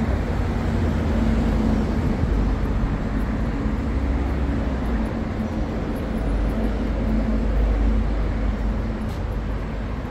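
Steady street traffic noise, with a vehicle engine's low hum running through most of it.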